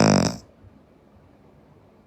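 The end of a sleeping girl's loud snore, which stops about half a second in and is followed by a quiet pause between breaths.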